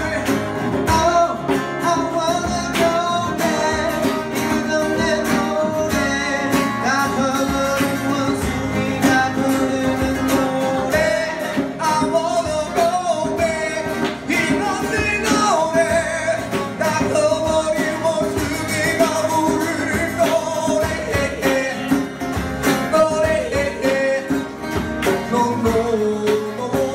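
Live acoustic pop song with male singing over acoustic guitar and keyboard, amplified through a Behringer EPA900 PA system.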